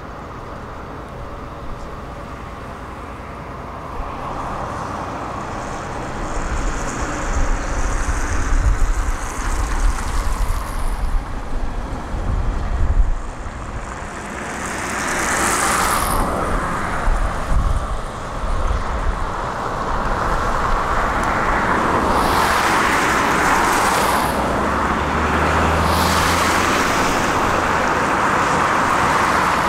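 Motor vehicle engine and traffic noise, with irregular low rumbles in the first half. The noise swells about halfway through and stays louder for the last third, as if vehicles are passing.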